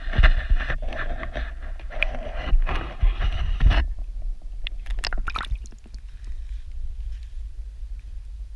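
Muffled underwater churning and knocking of creek water against a submerged GoPro camera being moved through it. About four seconds in, the sound drops off abruptly as the camera comes out of the water, followed by a few sharp ticks and a quiet low rumble.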